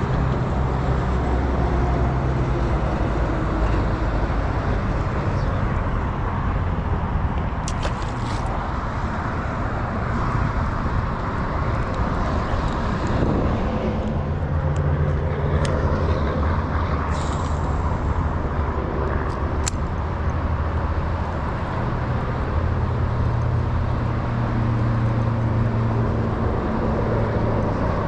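Steady road traffic rumble with engine hum from passing vehicles, plus a few light clicks scattered through.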